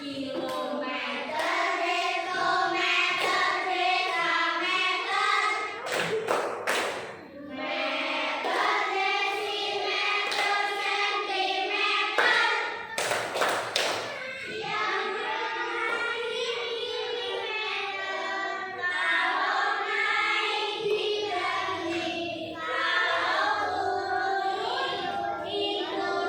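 A class of children singing a song together in chorus, with short bursts of clapping about six seconds in and again about thirteen seconds in.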